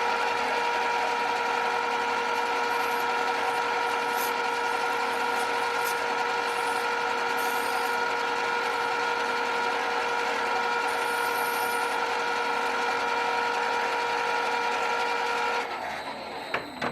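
A machine tool's spindle motor running at a constant speed with a steady whine, then switching off and running down near the end.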